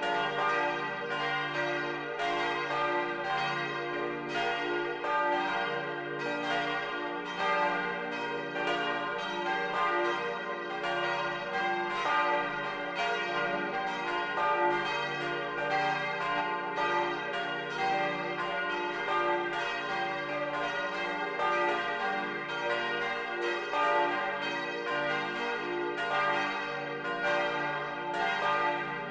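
Full peal of four bronze church bells tuned d'–f'–g'–b', cast by Junker of Brilon in 1950, swinging and ringing together, recorded close up inside the bell tower. Their strikes overlap in a steady stream, about two a second, over a long sustained hum of ringing.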